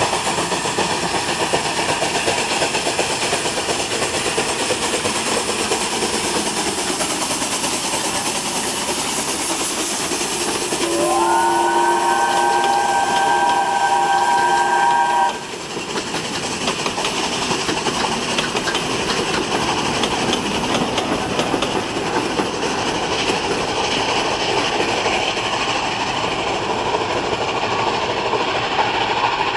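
ČSD class 477.0 steam locomotive 477.043 passing with its train, with steam hissing over the rolling noise. About 11 seconds in, its steam whistle sounds several notes at once for about four seconds, the loudest part, then cuts off suddenly. The carriages then roll past.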